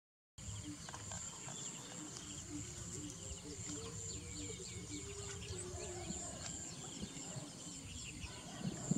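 Rural pond-side ambience: a steady high insect drone with scattered short chirps, and a low call pulsing about three times a second for the first few seconds. Near the end, louder close rustling comes in.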